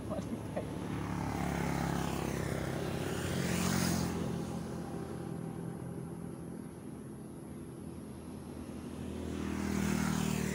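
Two motor vehicles passing by out of sight, each swelling and fading: the first passes about four seconds in, the second near the end, over a steady low engine hum.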